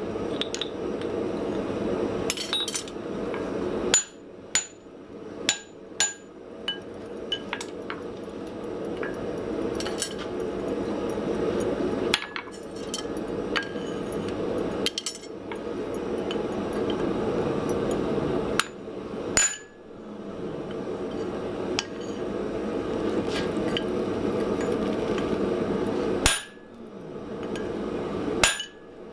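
Hand-hammer blows on hot steel at the anvil while fullering a small hammer head with a drift in its eye: scattered sharp, ringing strikes, some in quick pairs, over a steady roaring noise.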